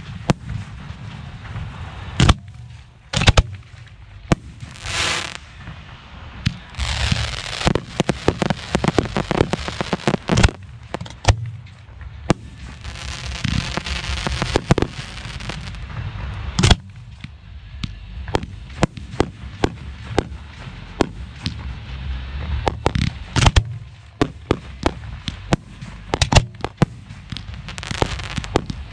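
Professional 1.3G aerial firework shells firing from mortar racks: a rapid run of sharp launch thumps and shell bursts over a steady low rumble. A brief pulsing whine comes about five seconds in, and there are two stretches of dense crackling.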